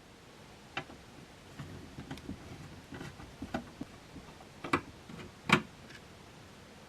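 Screws being taken out of the front panel of a Roland Fantom XR: scattered light clicks and ticks from the screwdriver and screws, with two sharper clicks a little past halfway.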